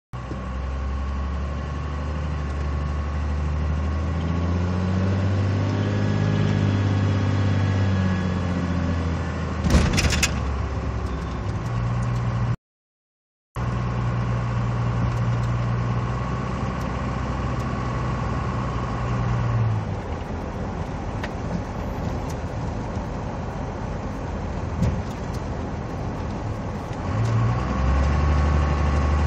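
Car engine running with a turbocharger whine, a steady high tone held over the engine note. The engine speed swells and falls back once in the first several seconds. There is a sharp knock around ten seconds in, and the sound cuts out completely for about a second shortly after.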